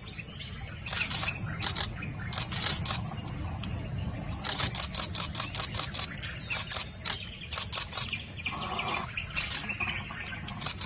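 Wild birds chirping in rapid repeated bursts over a steady high insect buzz, with a low steady rumble underneath.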